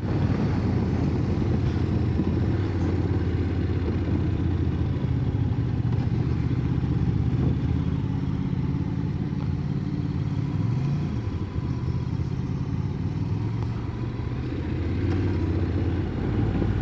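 Motorcycle engine running steadily under way, with wind and road rumble, heard from on the bike. The engine note rises briefly about eleven seconds in, goes quieter for a few seconds, then builds again near the end.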